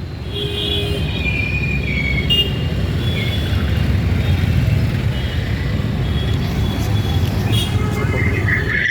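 Road traffic: vehicle engines rumbling as they pass, with short horn toots in the first couple of seconds and another near the end.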